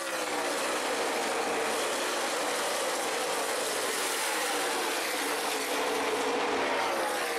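A pack of NASCAR Nationwide Series stock cars' V8 engines running past on the track as a steady loud drone. Falling pitch sweeps come as cars go by, most plainly right at the start and again near the end.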